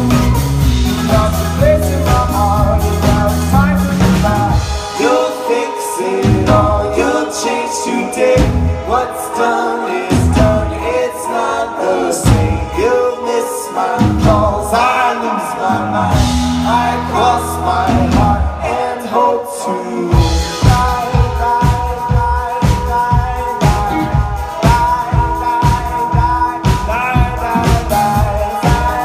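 Live pop band playing, with a woman singing lead through the PA over keyboard, bass and drums. The bass and drums drop out for short stretches, then a steady drum beat of about two hits a second comes back in about two-thirds of the way through.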